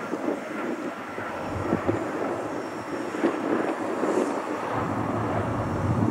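Boeing 737-400 airliner landing: a steady rushing noise from its CFM56 jet engines that grows gradually louder as it flares and touches down.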